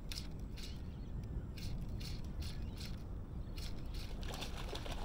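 Fly line being stripped in by hand through the rod guides: a series of short, irregular hissing zips, over a steady low rumble of wind on the microphone.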